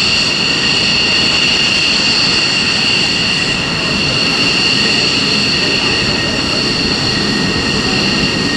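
Fighter jet engines running at idle on the ramp: a steady, loud, high-pitched turbine whine over an even rush of jet noise.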